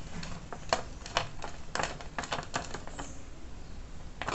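Small screwdriver tightening a terminal screw on a modular switch in a plastic extension box: a string of irregular small clicks and taps.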